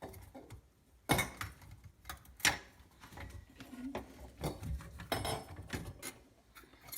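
Knocks and clatter of an old, rusted sink drain's metal parts being worked loose from under a bathroom sink. Two sharp knocks come about a second in and at two and a half seconds, then smaller clicks and rattles.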